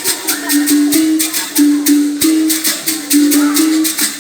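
Berimbau gunga, the low capoeira musical bow, played in a steady rhythm, its struck notes stepping between two close pitches. A caxixi basket rattle shakes along with each stroke.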